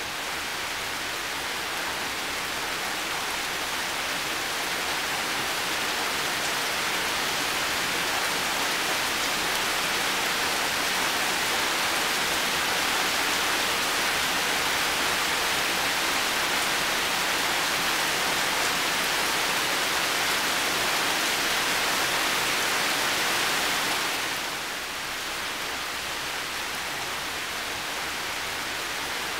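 Heavy rain falling steadily as a dense, even hiss. It is a little softer for the last few seconds.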